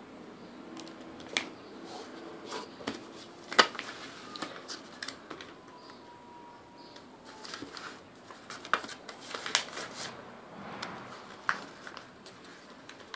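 A sheet of paper being folded and creased by hand on a wooden table: scattered short crinkles, rustles and taps, the loudest about three and a half seconds in.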